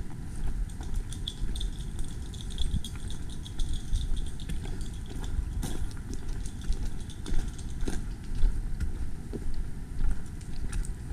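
Footsteps and rustling on a forest trail: irregular crunches and clicks over a steady low rumble, as the phone is carried along the hike.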